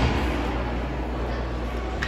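Ice hockey arena ambience: a steady low hum and an even wash of rink and crowd noise, with a dull thump right at the start.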